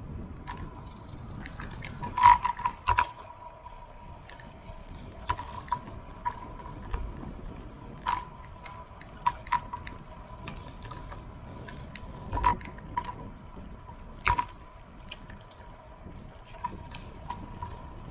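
Irregular mechanical clicks and rattles, with a few sharper knocks, over a steady thin whine.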